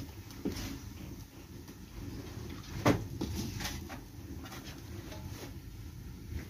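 Clinks and scrapes of a metal skimmer against a wok and a metal bowl as fried khajur dough pieces are lifted out of the oil, with one sharp knock about three seconds in, over a low steady background.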